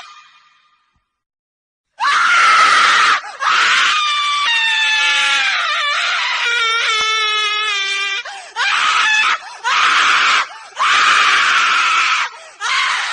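A woman screaming: after a short silence, one long high-pitched scream lasting about six seconds, its pitch wavering and sliding, then four shorter screams in quick succession.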